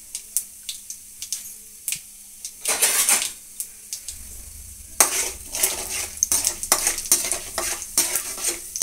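Mustard seeds and urad dal frying in oil in a kadai, crackling and sizzling, with a louder hiss about three seconds in. From about five seconds in, a slotted spoon stirs and scrapes against the pan in quick clicks and scrapes.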